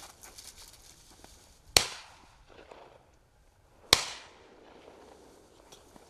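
Two shotgun shots about two seconds apart, each trailing off in a short echo, fired at turtle doves in flight.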